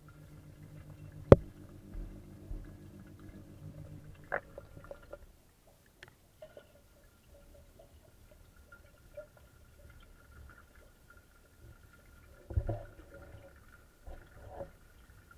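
Muffled underwater sound inside a fish tank: a low hum that stops about five seconds in and a faint steady high tone, with one sharp click about a second in and a few duller knocks later, the loudest cluster near the end.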